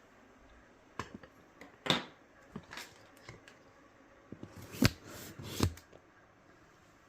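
A few scattered clicks and knocks of dryer cabinet parts and hand tools being handled during disassembly, the loudest a sharp knock a little before five seconds in.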